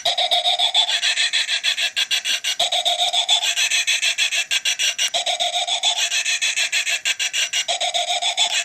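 Dollar-store motion-activated witch decoration screaming through its small built-in speaker, a harsh, crackly, distorted electronic scream that repeats in a loop about every two and a half seconds.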